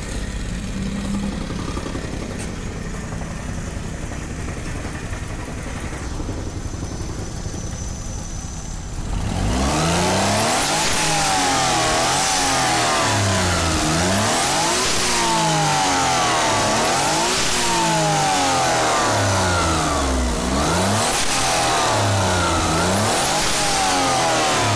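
Turbocharged kei-car engine in a classic Mini, newly wired and just started, idling steadily. About nine seconds in it turns much louder and is revved over and over, its pitch rising and falling roughly every two seconds.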